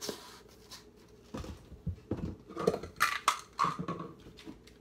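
Supplement containers and a shaker cup being handled: a string of irregular clicks, knocks and light rattles.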